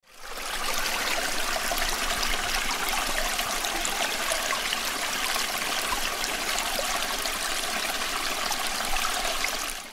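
Running, trickling water, steady with many small droplet ticks; it fades in at the start and cuts off suddenly at the end.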